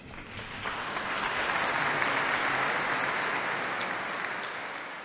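Congregation applauding: many hands clapping together, swelling over the first second or so and then slowly dying away toward the end.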